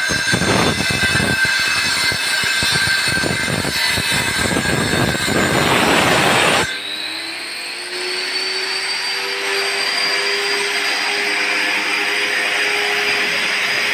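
Heavy angle grinder cutting grooves into a brick wall: a harsh gritty grind over a high whine. About halfway through the blade comes out of the brick and the grinder runs on free with a steady whine.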